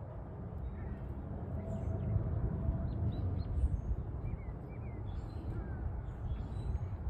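Garden ambience: several birds chirping faintly with short, quick calls, over a steady low rumble on the phone's microphone.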